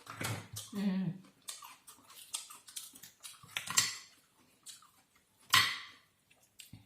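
Close-up eating sounds of someone eating seafood by hand: a run of small clicks and smacks, with two louder, noisier mouth sounds about four and five and a half seconds in.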